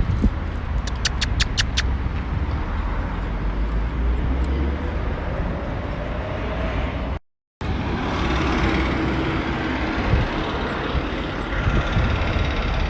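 Steady outdoor background rumble, with a quick run of about six sharp high ticks about a second in. The sound drops out completely for a moment a little past seven seconds.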